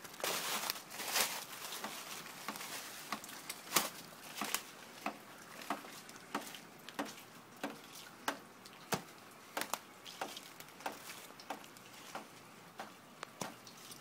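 Footsteps on thin snow and fallen leaves at a walking pace, a step about every two-thirds of a second, with heavier rustling of leaves and brush in the first two seconds.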